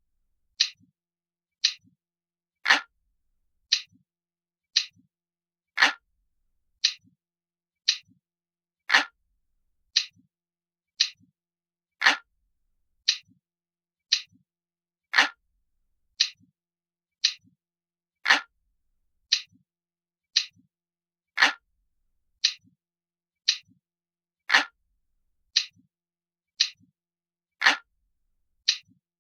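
Analog clock ticking steadily, about one tick a second, with every third tick a little stronger.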